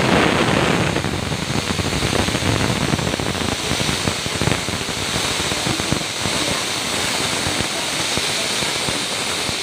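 Loud, steady hiss of steam venting from the pot of potatoes on the boil.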